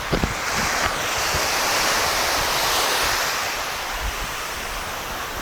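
Sea waves breaking and washing up a sandy beach: a rush of surf that swells about a second in and slowly eases off, with wind buffeting the microphone.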